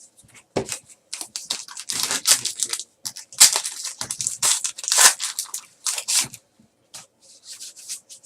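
Trading card packs being handled: foil pack wrappers crinkling and tearing and cards rustling, in a quick irregular run of crackles.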